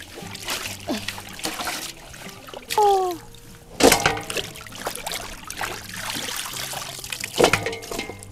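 Water trickling and splashing during food preparation, with two loud knocks that ring briefly, about four and seven and a half seconds in.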